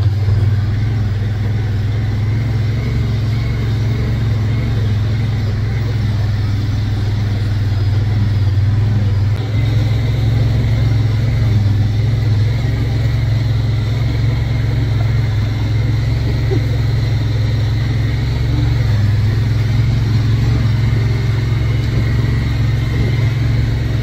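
Engine of an open-cab side-by-side utility vehicle running, a steady low drone heard from the seat.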